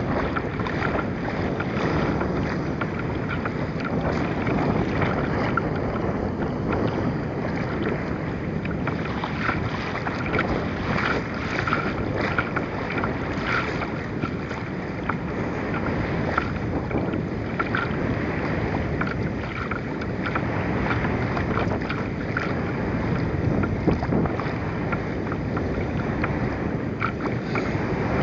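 Wind buffeting the microphone over choppy river water lapping against a kayak's bow, with frequent small splashes.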